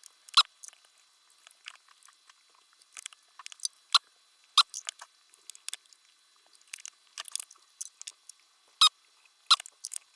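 Irregular small clicks, taps and rustles of computer parts being handled and worked on by hand, with a few sharper snaps standing out.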